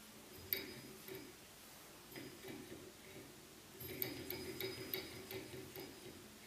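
Tabletop model Stirling engine, started by a flick of its flywheel and running, its flywheel and crank linkage giving off light, uneven ticks and clinks that come thicker from about four seconds in.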